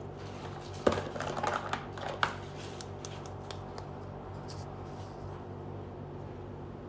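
Small plastic miniature toy pieces clicking and knocking as they are handled and set down, a quick run of clicks about a second in, then a few fainter ones, over a steady low hum.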